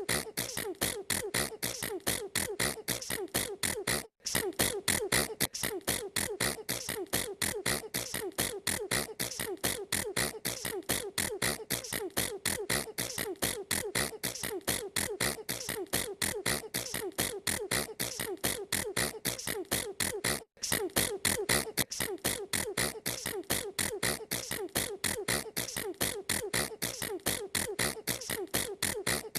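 A girl's sneezes repeated rapidly in a steady rhythm, several a second, broken twice by a brief gap.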